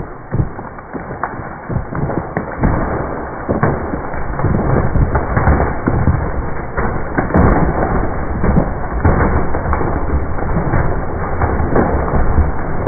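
Hinge wood of a large white pine cracking and popping over and over as the tree leans and its fibres tear apart at the stump. The cracks come thicker and louder from about four seconds in.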